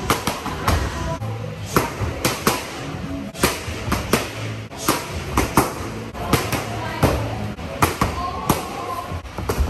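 Boxing gloves striking focus mitts in quick combinations: sharp slaps about two a second, often in pairs or threes, over background music.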